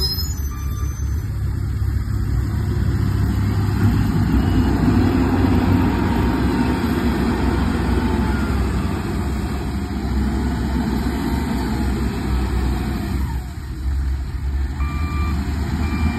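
Hindustan 2021E wheel loader's diesel engine working steadily under load, swelling in level a few seconds in. A couple of short reversing beeps sound near the end.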